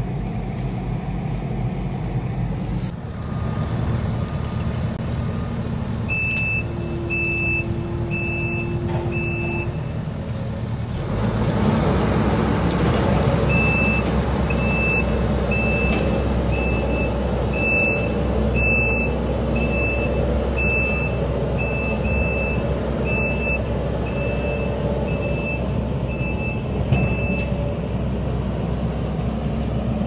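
Kubota SVL compact track loader's diesel engine running, growing louder about eleven seconds in as it works in the mud, while its reversing alarm beeps steadily in two spells, the second longer.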